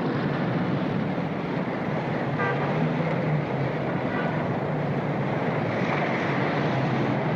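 Street traffic: a steady wash of car engines and tyres as vehicles pass, with two faint short car-horn toots, about two and a half and four seconds in.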